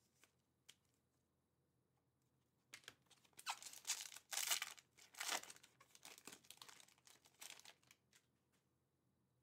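A foil trading-card pack wrapper being torn open and crinkled by hand: irregular rustling and tearing that starts a few seconds in and runs for about five seconds, loudest just after it begins.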